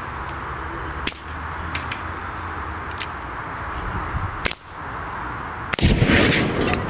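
A few sharp cracks from a .22 air rifle being fired, then near the end a large fireball explosion goes off with a loud, deep boom that rumbles on.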